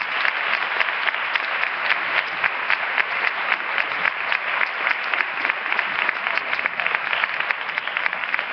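Audience applauding, many people clapping together in a dense, even stream of claps.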